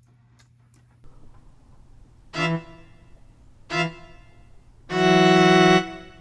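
A dramatic musical sting played on a keyboard: two short notes, then one long held note.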